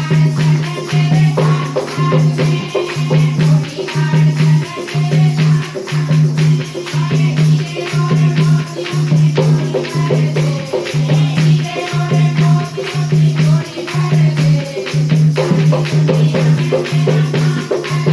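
Bhajan music: a steady low beat about once a second under a continuous rattling shaker, with a melody above.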